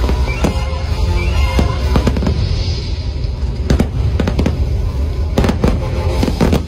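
Fireworks going off: sharp bangs and crackles over a steady low rumble, coming thickest about four seconds in and again toward the end. Music plays underneath.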